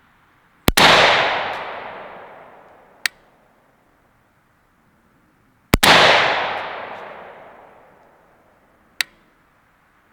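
Two aimed rifle shots from a PSA AK-103 GF3 in 7.62x39 firing 123-grain FMJ, about five seconds apart, each sharp report echoing away over about two seconds. A short, fainter sharp crack follows a couple of seconds after each shot.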